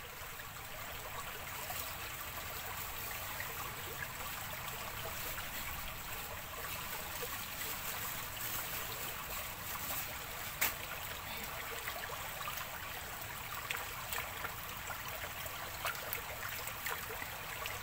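Shallow rocky stream trickling steadily, with a few faint clicks and small splashes as a whole chicken is handled and rinsed in the water.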